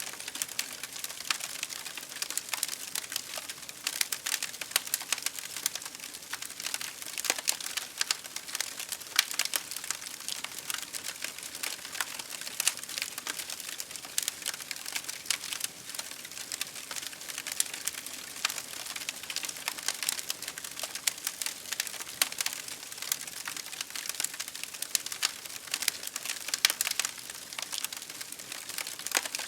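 Campfire crackling: dense, irregular small pops and snaps of burning wood over a steady hiss.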